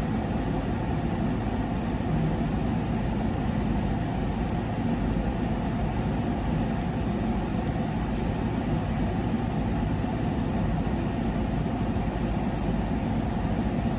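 Steady low rumble of a Corvette's engine idling, heard from inside the car's cabin.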